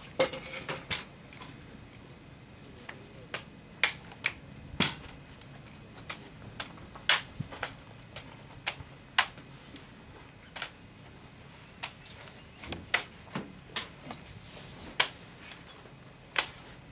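Drill rifle handled in exhibition drill: a run of sharp, irregular clacks as it is spun, tossed and caught in the hands, some much louder than others.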